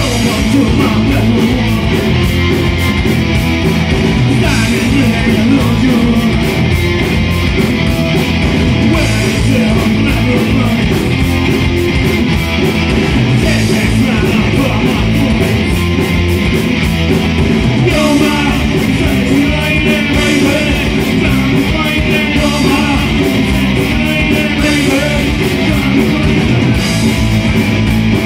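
Loud rock music with electric guitar and a steady drum beat, with a voice singing at times.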